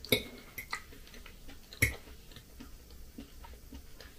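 Metal fork clinking against a glass plate while cutting meat: two sharp clinks about a second and a half apart, with a few lighter taps between.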